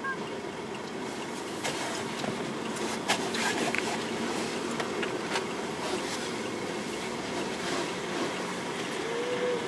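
Steady outdoor background noise, with a few faint clicks.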